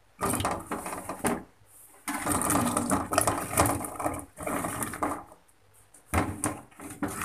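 Chunks of purple eggplant being dropped into an aluminium pot of thin coconut milk: soft splashes and pieces knocking against the pot and each other, in four bursts.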